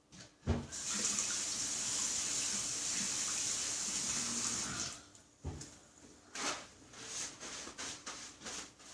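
A tap running into a sink in a steady hiss for about four seconds, then turned off, with a knock as it starts and another just after it stops. Small clicks and rubbing follow.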